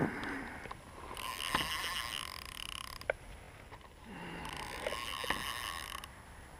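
Spinning (fixed-spool) fishing reel being wound, in two spells of about two seconds each, with a few sharp clicks, one right at the start.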